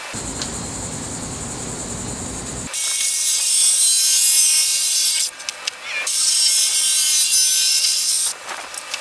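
A cordless Ridgid jigsaw cutting a plastic sheet, trimming the opening of a backer plate, in two runs of two to three seconds with a short pause between them. The runs are loud and have a high whine. Before the first run, starting about three seconds in, there is a steadier, lower rushing noise.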